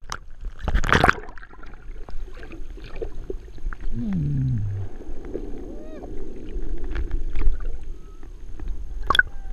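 Waterproof action camera plunging into the sea with a splash about a second in, then muffled underwater sound: scattered clicks and pops over a low hum, with a short falling tone around the middle.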